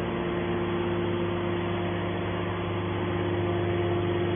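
Steady machine hum with several held tones: a horizontal hydraulic scrap metal baler running.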